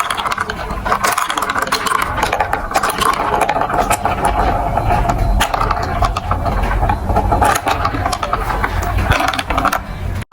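Marbles rolling and clattering through a plastic building-block marble run: a steady rattle with many small clicks over a low rumble, cutting off briefly at the very end.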